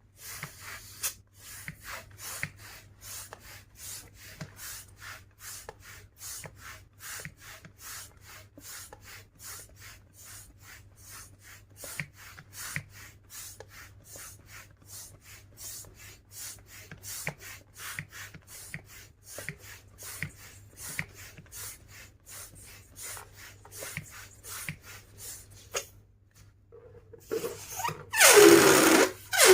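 Quick, evenly spaced rubbing strokes on rubber balloons, about three a second. Near the end, after a short pause, a much louder rushing sound starts, with a tone that falls and then holds steady.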